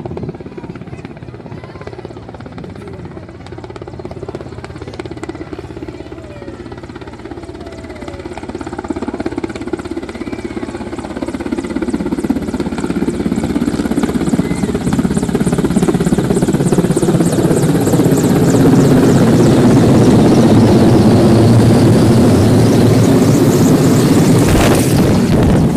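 A large helicopter's rotor and engines approaching, growing steadily louder until it is loud and overhead in the second half, the main rotor's rapid beating plain. A brief sharp noise sounds near the end.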